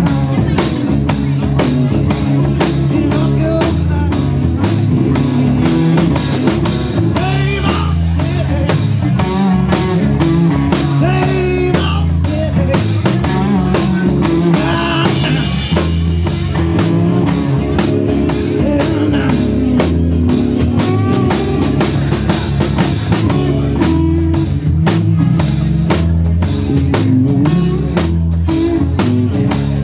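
Live rock band playing: a drum kit keeps a steady beat under electric guitar, bass guitar and strummed acoustic guitar.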